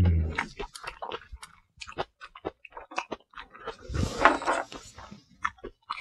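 Close-miked chewing and mouth sounds of a person eating: many small wet clicks and smacks. A short low hum from the eater opens it, and a breathy rush of air comes about four seconds in as noodles are brought up to the mouth.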